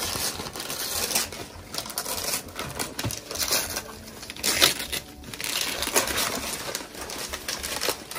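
Christmas wrapping paper being torn and crumpled off a gift box by hand, in quick irregular rips and rustles, the loudest rip about four and a half seconds in.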